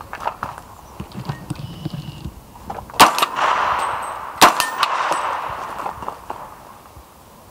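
Two shots from a CMMG Guard .45 ACP pistol-calibre carbine with a 16-inch barrel, about a second and a half apart. Each shot is followed by about a second of metallic ringing.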